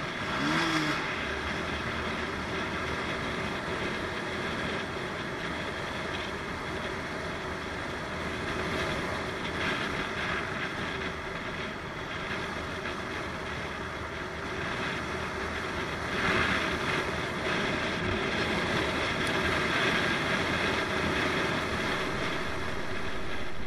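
Motorcycle riding along a road, heard from the bike: engine running and wind rushing over the microphone as a steady noise, swelling a few times.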